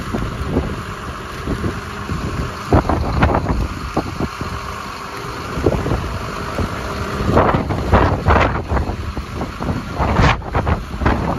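John Deere 6210R tractor's six-cylinder diesel engine idling steadily, with wind gusting on the microphone, loudest about seven and a half and ten seconds in.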